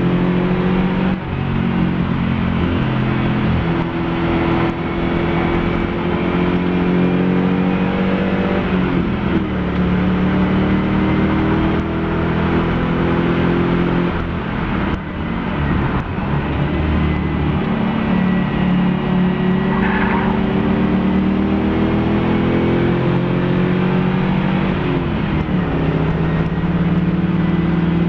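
Mopar-engined Nissan Z race car's engine at racing speed, its pitch climbing under hard acceleration and falling back at each gear change or lift, several times over.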